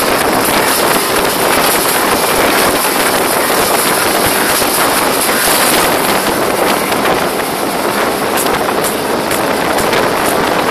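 Outboard motor of a speedboat running at speed, mixed with rushing water from the wake and wind buffeting the microphone. The wind crackle is stronger in the second half.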